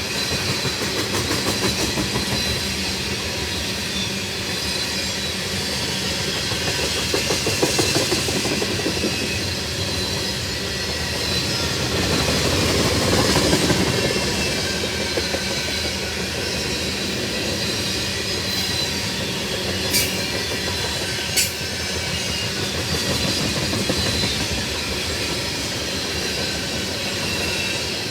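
Freight train of tank cars rolling past: a steady rumble with a rapid clickety-clack of wheels over the rail joints and a faint wheel squeal. Two sharp clanks come close together about two-thirds of the way through.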